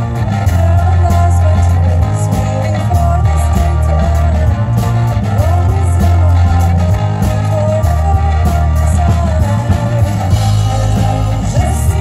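Live synth-pop band music through a PA: a woman singing lead over accordion, synthesizer, electric bass and drums. The bass holds long deep notes that change every second or two under a steady drum beat.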